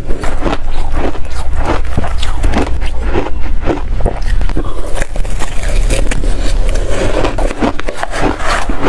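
Ice being bitten and chewed, a loud, rapid run of crunching and cracking.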